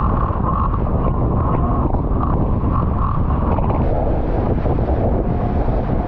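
Strong wind buffeting the microphone and water rushing and spraying off the hull of an International 14 skiff planing at speed in 20+ knots. A faint whining tone sits under the noise and drops to a lower pitch about halfway through.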